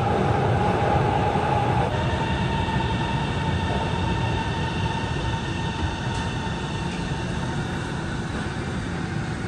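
Guangzhou Metro Line 22 train pulling into an underground station, with a steady rumble of wheels on rail and a motor whine that shifts pitch about two seconds in. The noise eases gradually as the train slows.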